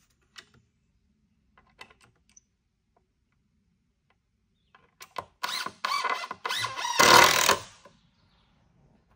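Cordless power drill driving a screw into the timber of a wooden rack, running in spurts with its pitch wavering under load for about three seconds, loudest as the screw goes home near the end.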